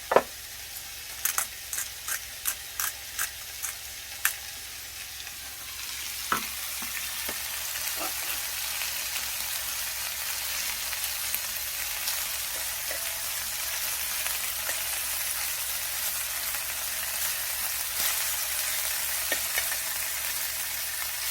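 Beef sizzling in oil in a frying pan, the sizzle getting louder about six seconds in and then holding steady. Several sharp clicks come in the first few seconds.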